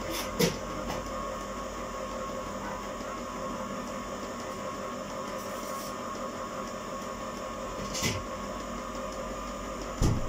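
Electric ice cream maker running with a steady machine hum while it churns and freezes a batch of gelato. A few light knocks of things being handled come near the start, about eight seconds in, and at the end.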